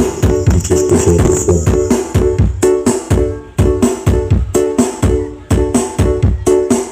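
Dance music played loud through a carnival sound system: a steady, fast beat with heavy bass and repeating keyboard notes.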